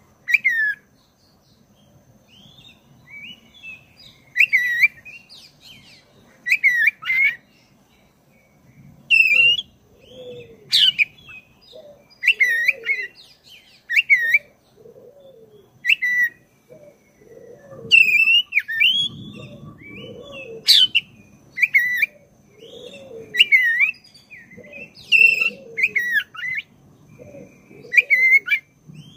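Black-breasted oriental magpie-robin (kacer) singing: loud, varied whistled phrases with sharp high notes, one every second or two, sparser in the first few seconds and then coming almost without pause.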